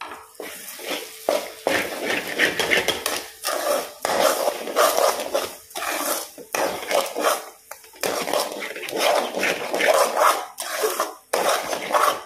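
Steel spoon scraping and stirring thick almond paste and sugar around a metal kadai in quick, irregular strokes, metal rasping on metal, while the sugar is mixed into the paste for badam halwa.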